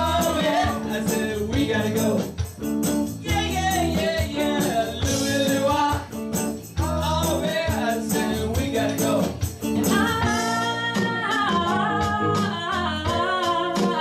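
Live band playing a song with a singer at the microphone, including a long held sung note about ten seconds in.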